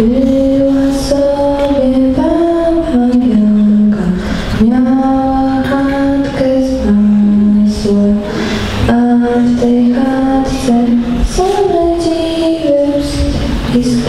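A young woman singing a slow solo melody into a handheld microphone, in long held notes that move up and down by small steps, with brief breaths between phrases.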